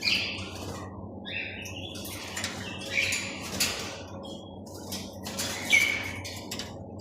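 Myna calling: a scattered series of short, harsh squawks and chirps, the loudest about six seconds in, over a steady low hum.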